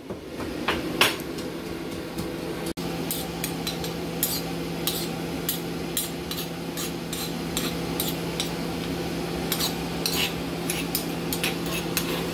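Stone pestle knocking and grinding garlic in a marble mortar: a string of irregular sharp knocks and scrapes. A steady low hum runs underneath.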